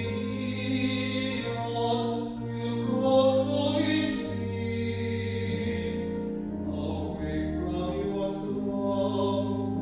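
A hymn sung with instrumental accompaniment: slow, long-held notes in several parts, with a few sung consonants standing out.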